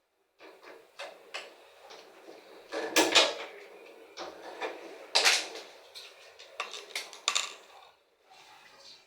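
Irregular clicks, knocks and rattles of tools and parts being handled inside an opened washing machine while its drain pumps are being removed. The loudest clatter comes about three seconds in and again about five seconds in.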